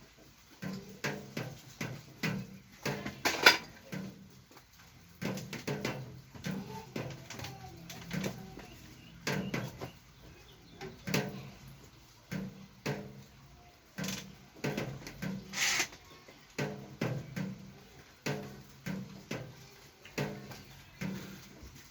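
Irregular clicks and knocks, about one or two a second, with a louder knock about three and a half seconds in and a short scraping hiss near sixteen seconds.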